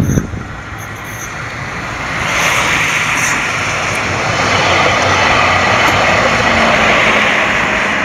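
Street traffic noise: a steady rush of tyres and engines that swells about two seconds in and then holds.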